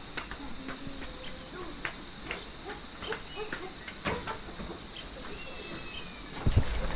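Insects trilling steadily at a high pitch, with scattered faint clicks. Near the end a few loud, low thumps begin.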